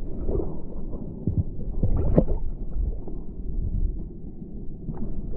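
Muffled underwater sound through a submerged camera: a low rumbling wash of moving surf water, with a few dull knocks about a second in, around two seconds in and near the end.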